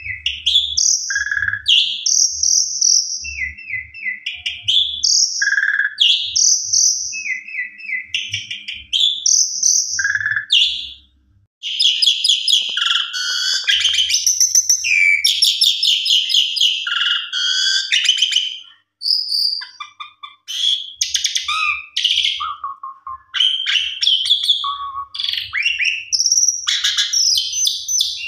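Javan pied starling (jalak suren) singing: a short whistled phrase repeated about every two seconds, then, after a brief pause about eleven seconds in, a long run of rapid, varied chattering and whistled notes.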